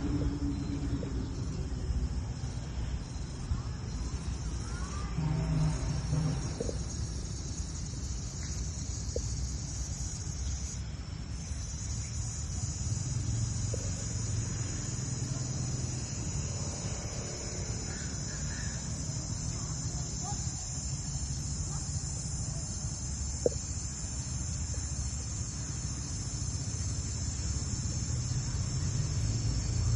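Steady high-pitched insect chorus over a constant low rumble, with a single brief click about three quarters of the way through.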